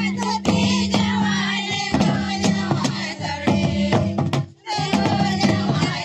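Santhali folk music from hand-played double-headed barrel drums beating a steady rhythm, with voices singing over them. The sound drops out for a moment about two-thirds of the way through.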